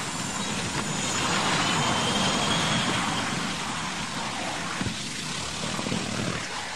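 Propeller aircraft engine running under a steady rushing noise, with a single click about five seconds in.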